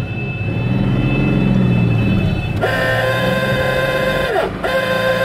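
Car engine running and picking up revs, then a car horn sounds twice: a steady toot of nearly two seconds, then after a brief gap a second one, each sagging in pitch as it stops.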